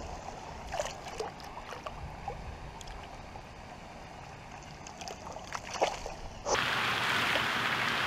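Small splashes and drips of hands and a largemouth bass moving in shallow water as the fish is released, in a few short clusters with the loudest splash near the end. About six and a half seconds in, a loud steady hiss takes over.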